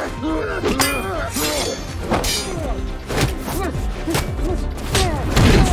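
Fight-scene sound effects: a quick run of about seven hits and crashes, some with a glassy shatter, mixed with grunts of effort over a film score. The loudest hit comes near the end.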